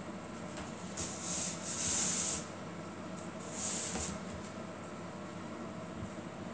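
A cord being drawn through a woven basket and lid as they are tied together: two hissing swishes, a longer one about a second in and a shorter one near four seconds, over faint rustling of the weave.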